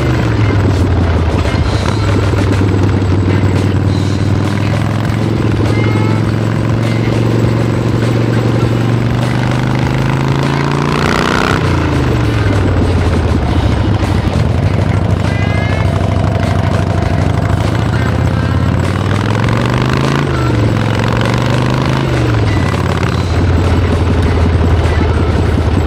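Custom Harley-Davidson chopper with a 1971 Harley-Davidson V-twin engine and Triumph gearbox, riding under way: the engine note climbs slowly for about ten seconds, drops sharply, then climbs again and rises and falls twice near the end as the rider works the throttle and gears.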